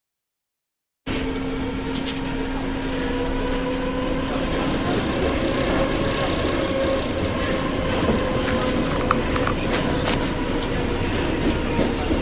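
Inside a moving train carriage: a steady rumble with a constant low hum and a few faint clicks. It starts suddenly about a second in, after silence.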